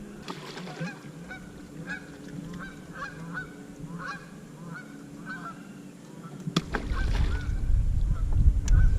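Geese honking, a steady run of short repeated calls. About two-thirds of the way through there is a sharp knock, and a loud low rumble takes over.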